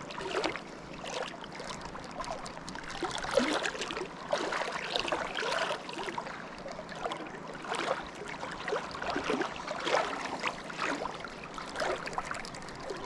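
River water splashing and gurgling in irregular little bursts over a steady rush of flowing water.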